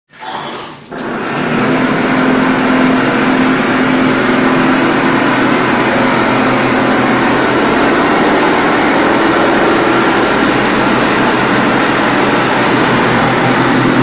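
TUPO 9 automatic wall-plastering machine running as it spreads mortar on the wall: loud, steady machine noise with a low hum, starting about a second in.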